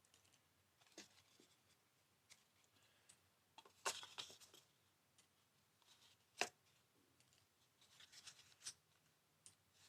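Faint, scattered clicks and scrapes from hinges being pulled out of a model airplane's elevator and set aside; otherwise near silence.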